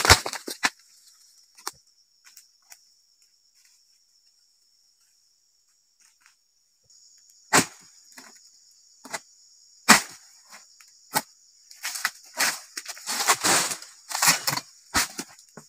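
Sharp chopping strikes of a dodos, a chisel blade on a long pole, jabbed into the bases of oil palm fronds: about a dozen irregular blows starting about halfway through. Under them a steady high insect buzz.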